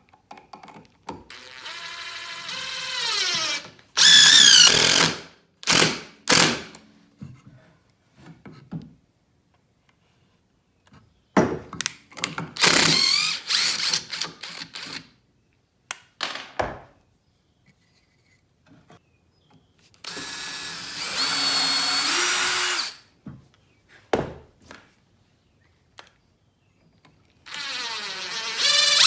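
Power drill running in several bursts of a few seconds each, spinning up in pitch at the start of each run, with short sharp clicks between the runs, as it drives into wood to show why a pilot hole should be drilled first.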